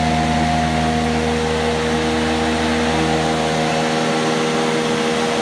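Robatel DC160CC decanter centrifuge running steadily at speed, belt-driven by a 10 hp electric motor: a steady whine of several held tones over a loud hiss. The deep hum beneath it fades about two-thirds of the way through.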